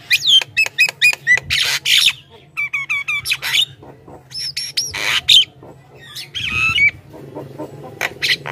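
Javan myna singing a loud, varied chatter: quick runs of short whistled notes that sweep up and down in pitch, broken by harsh squawks.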